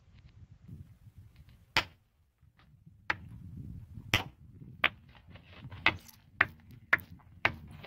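Tide Pods laundry detergent pods bursting one after another under a slowly rolling car tyre: a series of sharp pops, about eight, coming faster toward the end, over a low rumble.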